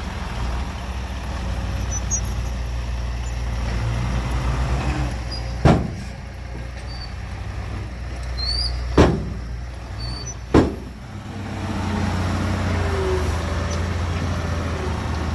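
Heavy diesel machinery running steadily at a low hum, with three sharp loud bangs, the last two about a second and a half apart.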